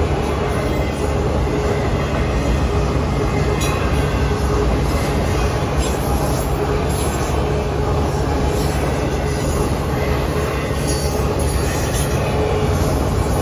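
Autorack freight cars of a CSX train rolling steadily past through a grade crossing, wheels running on the rails with a continuous rumble.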